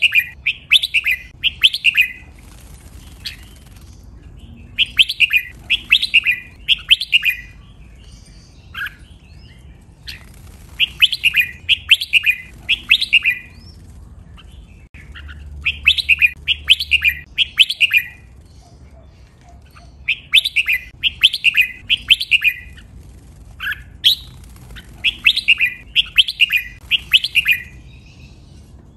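Red-whiskered bulbul singing: short phrases of four to six quick, sharp whistled notes, repeated every four to five seconds.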